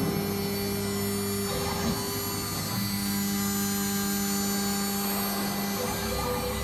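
6012 CNC router running: a steady machine hum with several steady tones, one of which cuts out about a second and a half in, comes back near the middle and stops again near the end.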